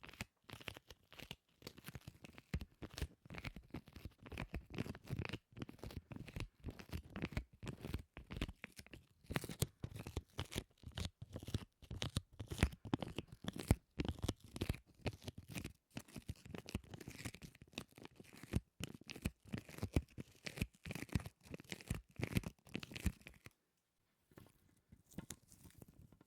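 Close-miked sticky sounds: a tacky surface pressed and peeled apart again and again in a rapid, crackling run. It becomes quieter a few seconds before the end.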